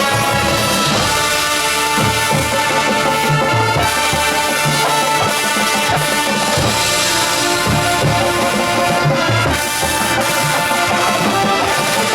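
High school marching band playing, with brass holding sustained chords over bass drum and percussion hits.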